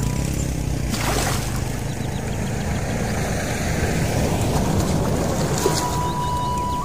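A motor vehicle passing, a steady rumble with hiss and a louder rush about a second in.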